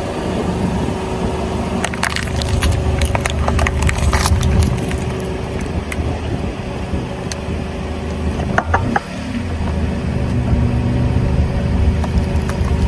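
A car's tyres rolling over and crushing drink containers, a cluster of sharp cracks and crunches from about two to five seconds in and a few more near nine seconds, over the steady low running of the car's engine.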